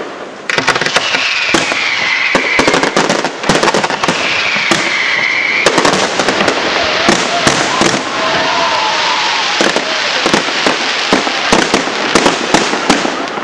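Aerial fireworks firing in a dense volley: rapid bangs of bursting shells over continuous crackling, with barely a pause.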